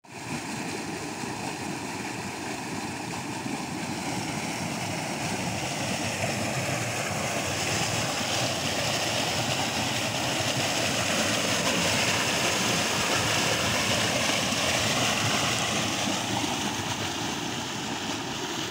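Large volume of seawater gushing from a vertical axial flow pump's discharge pipe and churning in a concrete basin: a steady rushing of water, swelling somewhat louder midway and easing near the end.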